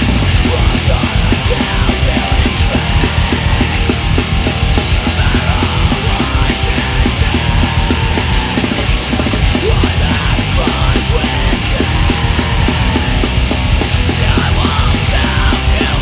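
Heavy rock song with the full band playing: distorted electric guitars and bass over a fast, dense drum beat.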